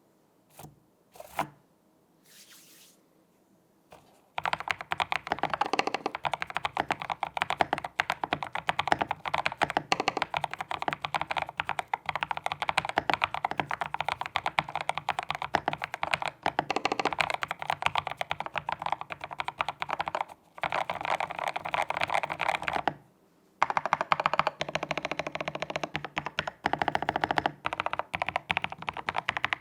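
Typing on a custom 60% mechanical keyboard with lubed Boba U4T tactile switches on a polycarbonate plate: a few scattered keystrokes, then from about four seconds in a fast, continuous clatter of keystrokes, with a short break about two-thirds of the way through before the typing resumes.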